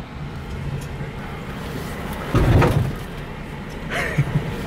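Jeep Gladiator's V6 engine running at low crawling speed, heard from inside the open-top cab as a steady low rumble. About two and a half seconds in, a louder low rumble rises for under a second.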